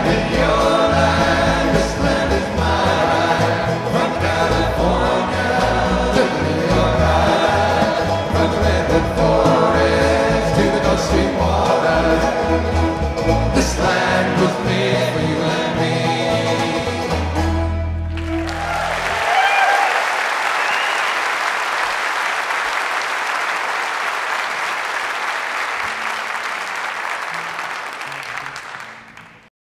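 Live folk band with group singing finishing a song, ending on a held low note about 18 seconds in. Audience applause follows and fades out near the end.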